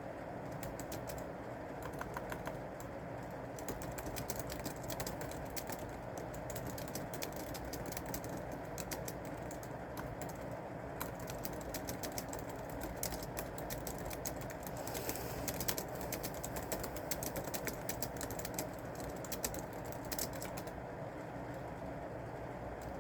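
Typing on a keyboard: uneven runs of quick key clicks, densest in the second half and thinning out near the end, over a steady background hiss.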